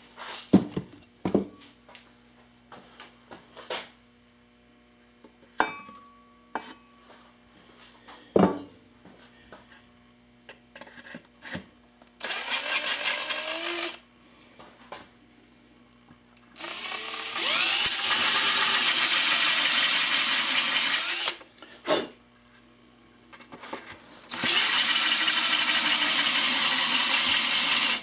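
Cordless drill boring holes through a Harley-Davidson V-Rod Muscle rear fender. It runs in three steady bursts: a short one about 12 seconds in, a longer one of about four seconds, and a third near the end. Before the drilling there are scattered knocks and clicks of handling.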